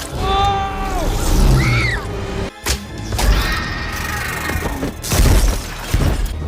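Dramatic film score with held notes that bend and fall, cut through by heavy booming crashes, the loudest about five seconds in.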